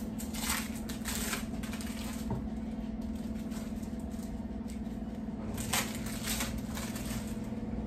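Short rustling crinkles from a pack of sliced cheese being handled and the slices pulled apart, a few times, over a steady low hum.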